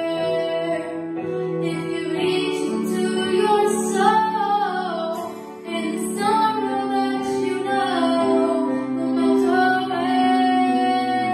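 A girl singing a song solo over instrumental backing, with long held notes.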